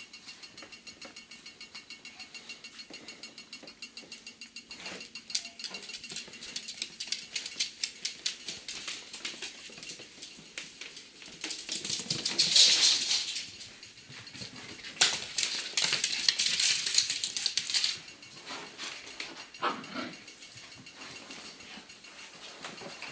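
A Papillon and a Shetland sheepdog playing, with many quick clicks and scuffles from paws and claws, and two longer stretches of loud rustling about halfway through.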